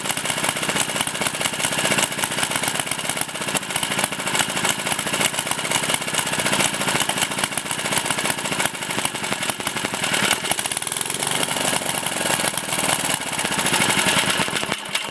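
JAP 2A stationary engine, a small single-cylinder four-stroke petrol engine, running steadily with a rapid, even firing beat.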